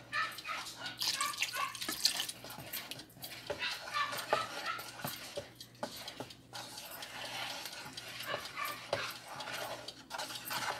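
Wooden spoon stirring a thick coconut-milk and condensed-milk mix in a plastic bowl: a scatter of soft scrapes, clicks and liquid sloshing, with short high squeaks now and then.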